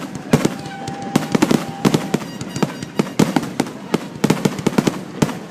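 Grand finale fireworks: aerial shells bursting in rapid, irregular succession, several sharp bangs a second over a steady crackle.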